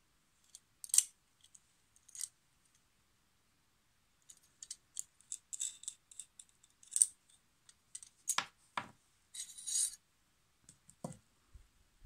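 Small sharp clicks, scrapes and rubs of an Olfa CK-2 stainless steel craft knife being handled: its brass locking wheel turned and the blade slid out of the handle. The clicks come in scattered bunches, the sharpest about a second in and about seven seconds in, with a couple of duller knocks a little later.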